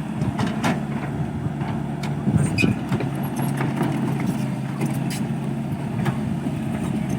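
Excavator's diesel engine running steadily, with scattered metallic clanks and knocks over the hum.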